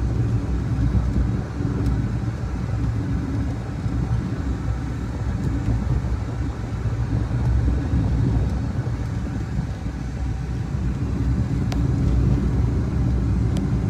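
Steady low rumble of a car driving along, heard from inside the cabin.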